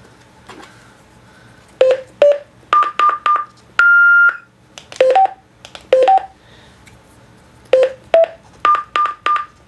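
Key beeps from a TYT TH-7800 mobile radio as a frequency is punched in digit by digit: short clicks, each with a beep of varying pitch. A longer, steadier, higher tone comes about four seconds in as the first entry completes. A second run of key beeps follows and ends in the same long tone.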